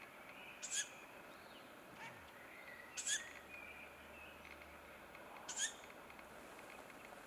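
Ural owlet begging calls: three short, hoarse, rasping calls about two and a half seconds apart. Faint thin notes of songbirds run underneath.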